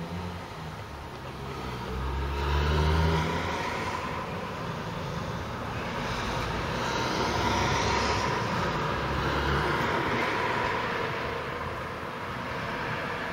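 Cars driving past on the street: one pass swells to its loudest about three seconds in, then a second, longer pass of engine rumble and tyre noise comes through the middle.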